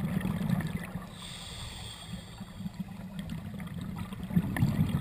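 Scuba diver breathing through a regulator underwater. Bubbling exhaust rumbles at first, a hissing breath comes in about a second in, and a second burst of bubbles follows near the end.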